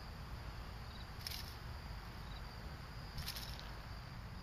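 Crickets trilling steadily in a continuous high chorus over a low rumble of outdoor noise, with two brief hissing noises about two seconds apart.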